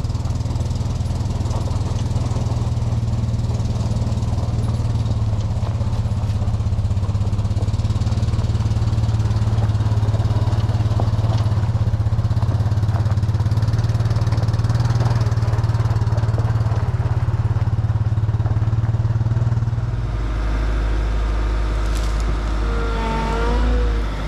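Skid steer engine running steadily under work; about twenty seconds in its note drops lower. Near the end, a reversing alarm starts beeping.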